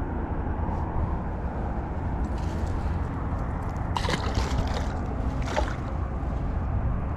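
Water sloshing and splashing in several short bouts, about two and a half, four and five and a half seconds in, over a steady low rumble.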